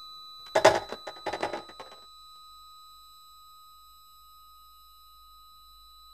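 Electroacoustic tape music: steady high electronic tones, with a quick cluster of loud, noisy clattering hits about half a second in that dies away by about two seconds.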